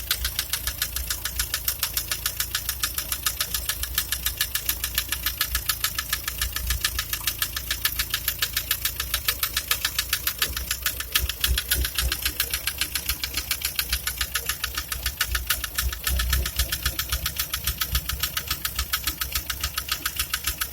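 Nissan Livina engine running with a fast, even ticking knock throughout. The owner calls it severe engine knocking ("ngelitik parah").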